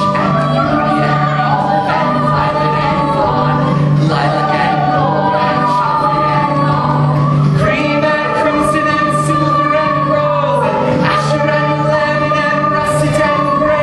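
A large school cast singing a musical-theatre number in chorus with instrumental accompaniment, holding long notes over a steady low bass note.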